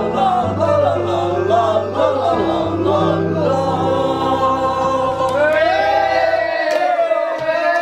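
Vocal music from a ringtone mashup: several voices singing in harmony over held bass notes. Near the end the bass drops out, leaving the voices alone.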